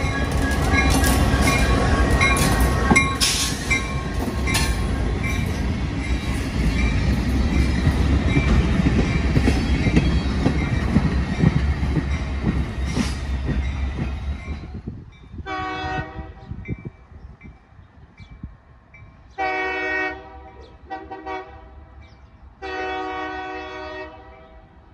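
A train passing close by: steady rumble with wheels clicking over rail joints. About two-thirds of the way in it stops abruptly, and a train horn sounds four blasts, long, long, short, long, the grade-crossing signal.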